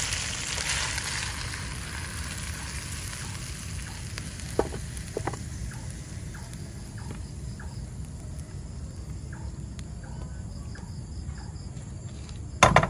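A squid and vegetable stir-fry sizzling in a nonstick wok, the sizzle dying down over the first couple of seconds. The spatula clicks and scrapes against the wok a few times as the food is pushed out onto a plate, and a single loud knock comes near the end.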